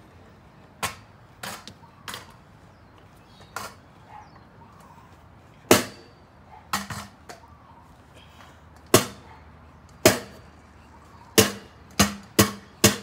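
Metal stunt scooter being slammed and wrenched against concrete: about a dozen sharp knocks and clanks, unevenly spaced and coming faster near the end. The rider is forcing its already-bent handlebar until it folds.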